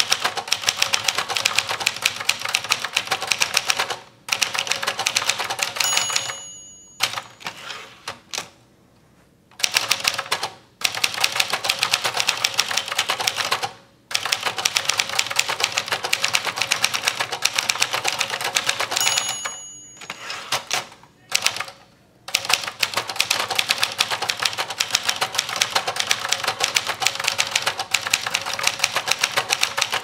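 Remington 666 portable manual typewriter (a rebranded late-1960s Brother) being typed on at speed: a fast, uneven clatter of type bars striking the platen. The margin bell rings twice, about 6 s and 19 s in, and each ring is followed by a few seconds' break in the typing.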